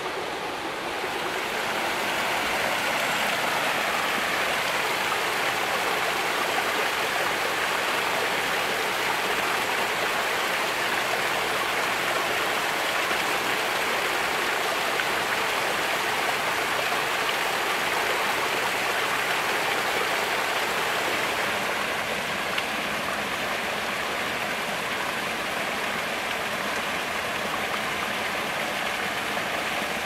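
Waterfall and the small cascading stream below it rushing steadily over rocks, growing louder over the first couple of seconds.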